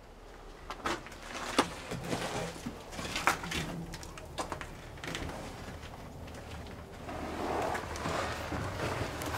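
Footsteps and scattered knocks on the steel floor inside a static electric locomotive's body. There are a few sharp knocks in the first half and a longer, louder stretch of shuffling noise near the end.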